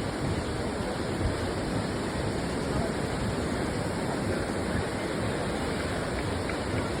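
Sea surf washing on a beach: a steady rushing noise of waves.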